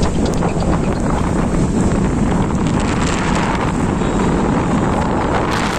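Strong wind buffeting the phone's microphone: a steady, loud rushing noise.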